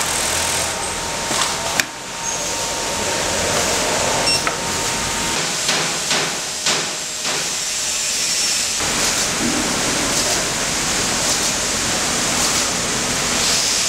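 Automatic pattern sewing machine running: a steady whirring hiss with scattered sharp clicks and knocks, most of them in the first half.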